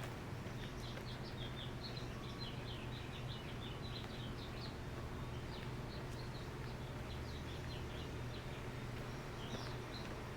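Small birds chirping and twittering in quick runs of short high notes, pausing near the end and starting again, over a steady low rumble.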